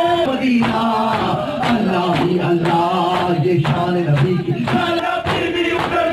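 A noha, an Urdu lament for Imam Husayn: male voices chanting in chorus, holding long drawn-out lines.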